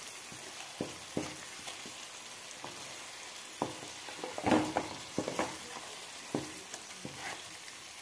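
Chicken pieces and dry spice powders sizzling in hot oil in a pan while a wooden spatula stirs and turns them. A steady sizzle runs under scattered scrapes and knocks of the spatula, the busiest a little past the middle. This is the masala being fried into the chicken until it coats the pieces.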